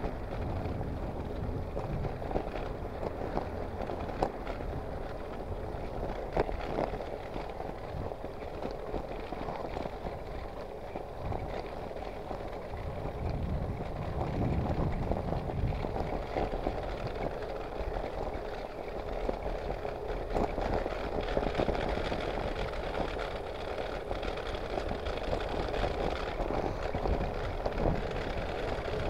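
Bicycle being ridden along a tarmac road: steady tyre and road noise with a few sharp clicks.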